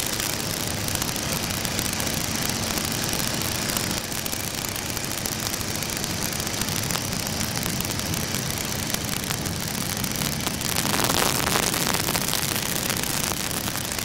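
Stearman biplane's radial engine running steadily at cruise, heard from the open cockpit under a heavy rush of wind. The wind noise swells briefly about eleven seconds in.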